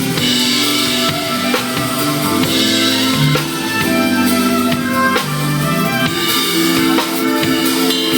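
Drum kit played along with a recorded band backing track, drum strokes over sustained pitched notes from the other instruments.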